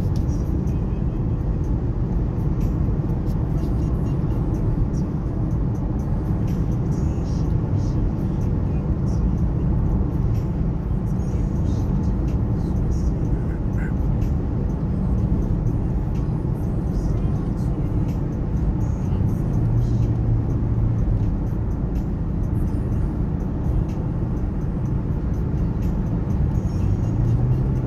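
Steady low rumble of a motor vehicle driving, with no distinct events.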